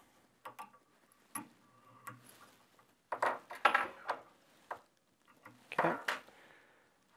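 Small clicks, taps and rustles of fly-tying tools and fingers working a tube fly in the vise as the thread is whip-finished, in short irregular bursts.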